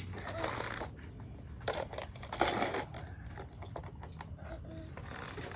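Faint clicks and rustling, the sound of small objects being handled, with faint voices now and then.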